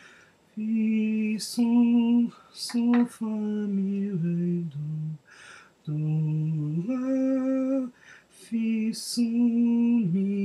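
A man singing a sight-singing exercise unaccompanied in solfège syllables. He holds one note at a time, stepping up and down in pitch, with short gaps between notes.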